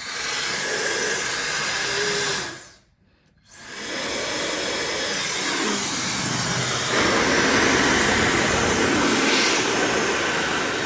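Counterfeit Dyson-style hair dryer blowing with a steady rush of air. It is switched off about two seconds in and winds down, starts again a second later, and gets louder about seven seconds in.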